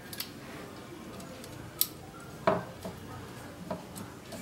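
Small handheld tube cutter being turned around a copper tube to cut it, with faint scraping and a few light metal clicks, one sharp click about two seconds in and a short metallic ring just after.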